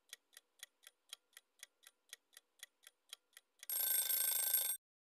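Countdown-timer sound effect: a clock ticking faintly and evenly, about four ticks a second, then near the end a louder alarm sound lasting about a second that marks the end of the countdown.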